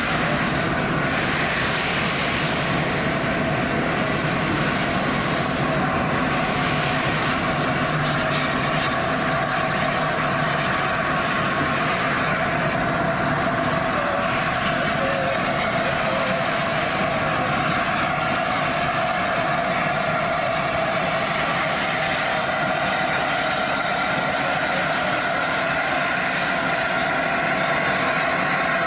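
A standing locomotive running steadily: a continuous hiss and hum with a few steady tones, unchanging in level, with no chuffs or sudden sounds.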